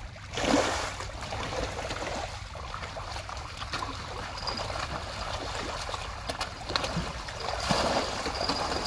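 Water trickling and splashing, with a louder splash about half a second in and another near the end, over a low steady rumble.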